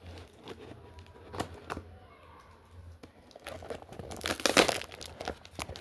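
Gift packaging being torn open and crinkled by hand: scattered crackles at first, growing louder and busier from about three and a half seconds in.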